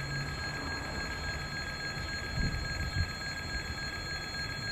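Passenger train coaches rolling away over station tracks: a low steady rumble with faint steady high ringing tones over it, and two dull low thumps about two and a half and three seconds in.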